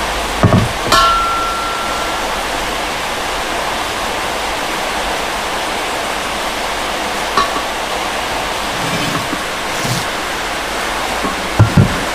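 Cast alloy motorcycle wheels (Axio and Vrosi rims) being handled and stood against each other: a few scattered knocks, one near the start followed by a short metallic ring, and two louder thumps near the end, over a steady hiss.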